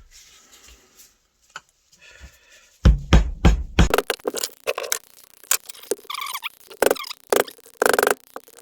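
Hammer blows on the steel retaining ring inside a split differential as it is being smashed out. A quick cluster of heavy thuds comes about three seconds in, then a run of sharp, irregular metal strikes that ring.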